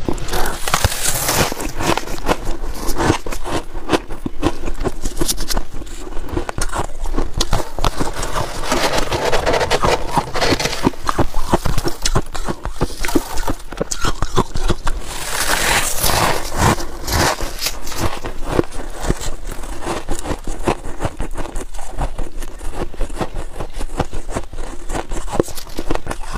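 Freezer frost crunching and crackling: soft frost scraped off the walls of a chest freezer and squeezed in a gloved hand, then bitten and chewed. A dense, continuous crackle of small crunches.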